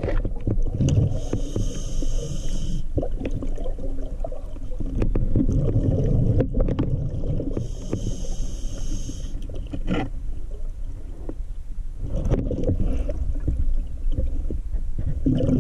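Scuba diver breathing through a regulator underwater, heard through the camera housing. Two inhalations about seven seconds apart each make a short high hiss, and exhaled bubbles gurgle and rumble in between.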